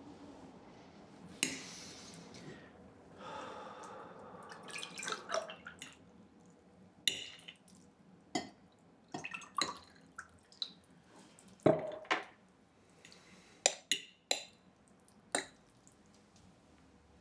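Spoon clinking and scraping against a breakfast bowl, a dozen or so separate light clinks spaced irregularly, a few of them close together.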